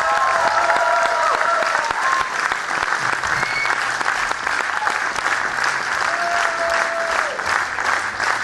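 Audience applauding a live rock band at the end of its set; the band's music stops just as the clapping takes over.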